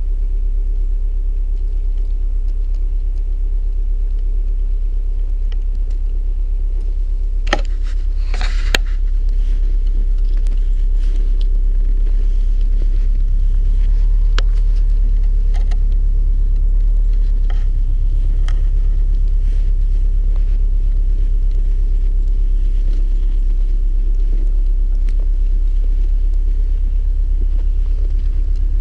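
2016 Subaru WRX STI's turbocharged 2.5-litre flat-four idling, a steady deep rumble. A few brief scuffs and clicks come about eight seconds in.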